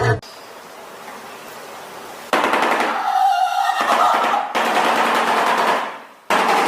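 A bird's loud, rapid rattling call, a fast run of clicks with a pitched tone through it, in two bouts. It comes after about two seconds of faint hiss.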